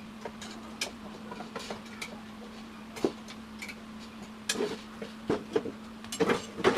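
Small coffee roasting machine running: a steady hum at one pitch, with scattered, irregular clicks and ticks over it.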